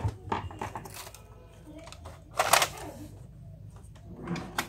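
Plastic printer parts being handled and fitted by hand: a string of clicks and knocks, with one louder scraping rustle about two and a half seconds in and more clicks near the end.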